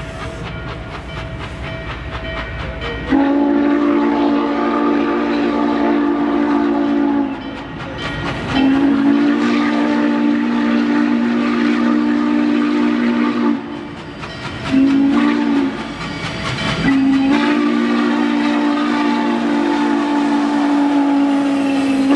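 Norfolk & Western 611's steam whistle sounding the grade-crossing signal, long, long, short, long, as the 4-8-4 steam locomotive approaches the crossing. Its chord is held steady on each blast. A low rumble from the train comes before the first blast, about three seconds in.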